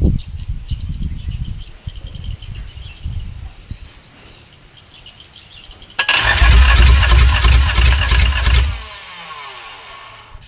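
Volvo six-cylinder diesel engine, with only two of its glow plugs working, being cranked hard by the starter. A few uneven low thumps die away in the first two seconds. About six seconds in comes a loud burst of starter cranking that lasts nearly three seconds, and after it the starter winds down with a falling whine while the engine does not keep running.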